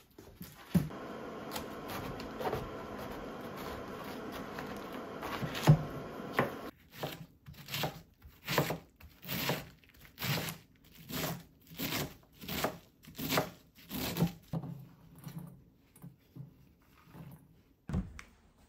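Kitchen knife chopping a head of cabbage on a wooden cutting board: a steady series of a dozen or so crisp cuts, about one every 0.7 seconds. Before it comes a few seconds of steady rustling noise, and near the end a single knock.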